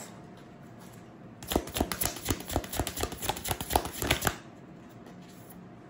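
A deck of oracle cards being shuffled by hand: a quick run of card snaps and flicks lasting about three seconds, starting about a second and a half in.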